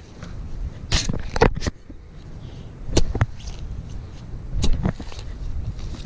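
Serrated digging trowel chopping into turf and soil to cut a plug: several sharp strikes spaced a second or more apart, over a steady low rumble of wind on the microphone.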